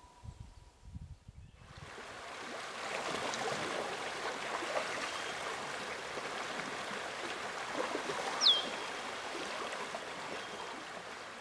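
Water trickling and running, like a shallow stream, starting about two seconds in. Past the middle comes one short high whistle that slides down in pitch.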